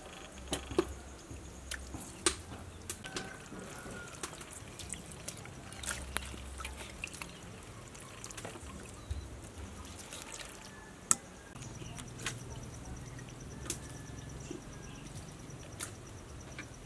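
Hands washing raw pork intestine in a metal basin of water: scattered splashes, drips and wet squelches as the intestine is worked and lifted out of the water.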